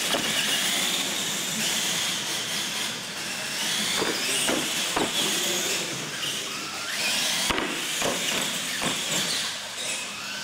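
Electric R/C monster trucks racing on a concrete floor: motors and gears whining with pitch rising and falling as they accelerate and slow, over tire noise. Several sharp knocks in the middle of the run as the trucks hit the ramps.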